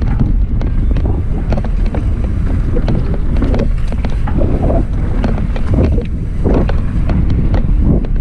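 Wind buffeting the microphone of a mountain bike descending a dirt trail, with frequent clicks and rattles from the bike over the ground.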